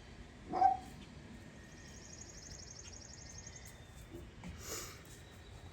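A dog barks once, a single short bark about half a second in.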